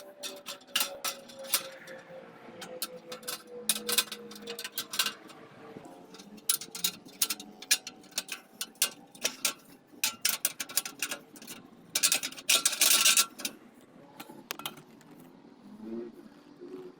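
Irregular metallic clinks and knocks with scraping as steel rods and a rebar bending tool are handled, with a denser rasping scrape lasting about a second roughly three-quarters of the way through.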